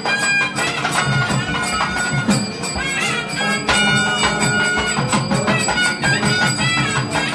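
Traditional Indian temple music with ringing bells and percussion, accompanying an arati, the waving of a lit lamp before the deity.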